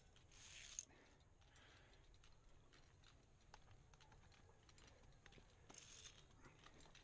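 Near silence, with faint scattered clicks and two brief soft scrapes, about half a second in and near the end, from a climber's hands and gear against limestone rock.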